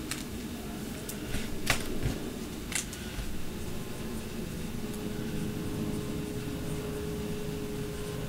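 A few light plastic clicks and rustles in the first three seconds as a trading card is handled and slid into a rigid plastic top loader, over a steady low room hum.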